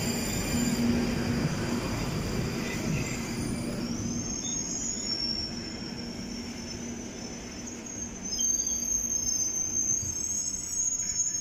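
London Underground Northern Line 1995-stock train running along the platform: a steady low hum with rail noise, joined about four seconds in by a high-pitched wheel squeal that grows louder near the end.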